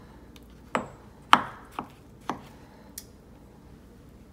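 Chef's knife chopping cooked beets on a wooden cutting board: five uneven knocks of the blade on the board, the second the loudest and the last ones fainter.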